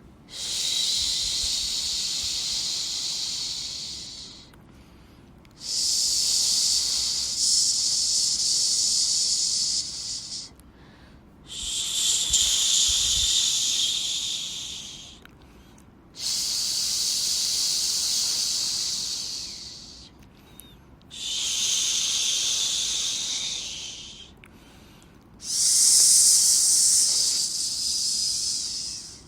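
Rhythmic shushing: a long, hissing "shhh" sound repeated six times, each three to four seconds long with about a second's pause between, as used to soothe a baby to sleep.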